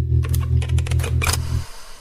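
The tail of a music piece on the radio show: a held low bass note with a run of sharp, typing-like clicks over it, cutting off about three-quarters of the way through and fading away.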